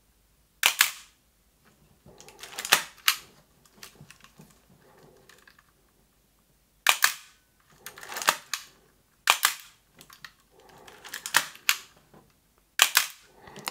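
Nikon F3 35mm SLR firing repeatedly: about seven releases, each a sharp double click as the mirror flips up and the shutter fires, then the mirror returns. Between releases there are fainter rustling mechanical sounds.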